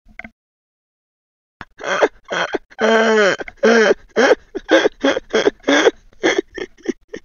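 A man laughing hard, starting a couple of seconds in: a long falling howl, then a string of loud rhythmic laugh bursts, about two a second.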